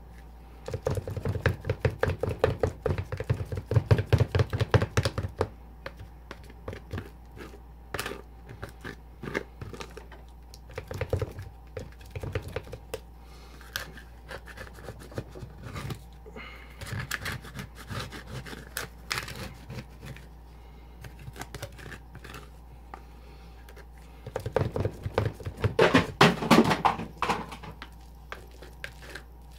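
Two plastic spatulas chopping and scraping a freezing mixture on the cold metal plate of a rolled ice cream pan. There is a fast run of sharp taps about a second in and another near the end, with slower single taps and scrapes between.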